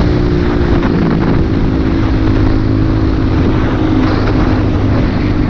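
Motorcycle engine running at a steady pitch while riding, with wind rushing over the microphone.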